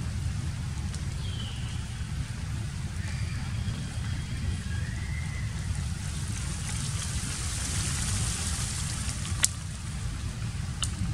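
Steady outdoor ambience of low rumble and hiss, with a few faint chirps and two sharp clicks near the end, the first the louder.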